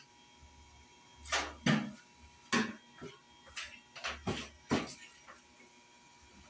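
Kitchen handling noise: a series of sharp knocks and clicks over a few seconds, the last ones as a refrigerator door is pulled open.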